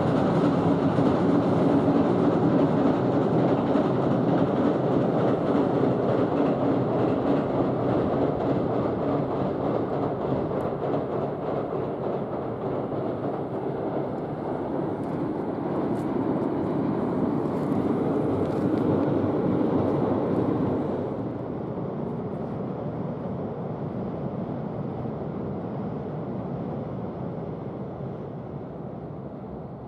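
A train passing on rails, a long steady rumble that eases off about two-thirds of the way through and fades away at the end.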